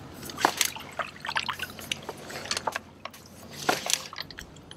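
Water sloshing and dripping in a few small, irregular splashes, from a landed smallmouth bass being held in the river to let it breathe.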